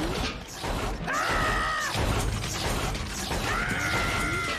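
Cartoon sound effects: a mechanical clatter and rattling, with two held high tones that each last about a second, one about a second in and one near the end.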